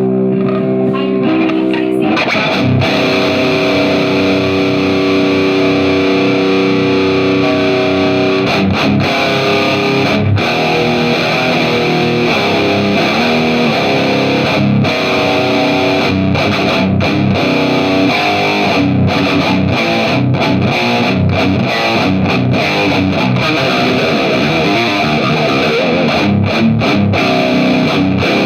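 Electric guitar played through distortion. A held chord rings for about two seconds, then quick riffs follow, broken by many short stops.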